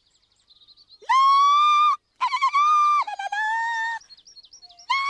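A very high singing voice holding long 'laaa' notes. One long note starts about a second in, two wavering phrases follow, and another held note begins near the end. Faint bird twitter fills the gaps between the phrases.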